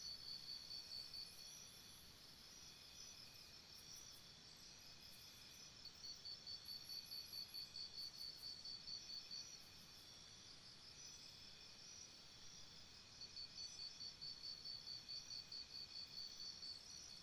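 Several crickets chirping at different pitches. The loudest one trills in rapid pulsed bouts of a few seconds, at the start, from about six to nine and a half seconds in, and again near the end, with fainter chirping carrying on between.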